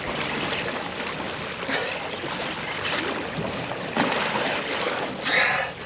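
Sea water sloshing and splashing against a boat's hull, a steady rushing noise, with a brief louder burst of noise about five seconds in.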